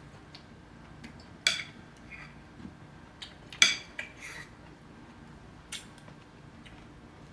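Metal spoon clinking against dishes, a handful of sharp ringing clinks with the two loudest about two seconds apart and lighter taps between, as food is served.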